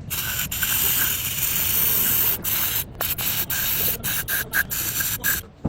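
A loud harsh hiss, like air or spray rushing, broken by short gaps several times in its second half and cutting off shortly before the end.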